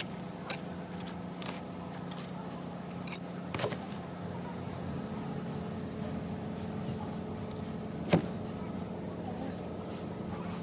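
A few sharp metallic clicks and knocks from tools and transfer case parts being handled, the loudest about eight seconds in, over a steady low hum.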